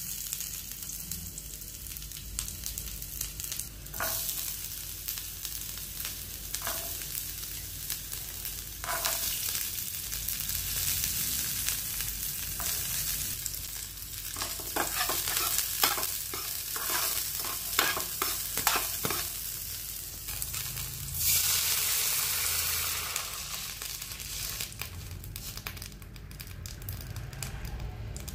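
Chopped vegetables sizzling in hot oil in a frying pan, with a slotted metal spoon scraping and clinking against the pan as they are stirred around the middle. A louder swell of sizzling comes about three-quarters of the way through.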